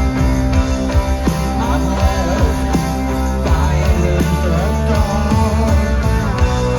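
A rock band playing live and loud, with a voice singing over it.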